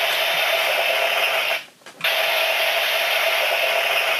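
Electronic sound effect from the DX Tridoron toy car's small built-in speaker, set off by locking the cockpit module in for Type Wild mode: a loud, hissing, buzzy noise with a steady tone in it, in two long stretches with a short break about one and a half seconds in.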